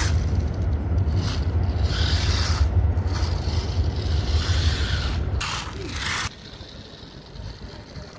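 3D-printed RC car running, its motor and gears rumbling and scraping, with several brief louder surges. It goes much quieter about six seconds in.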